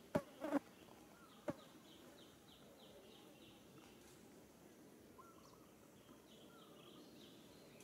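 Faint outdoor ambience with three sharp clicks in the first second and a half, then faint, quick repeated chirping and a few scattered chirps later on.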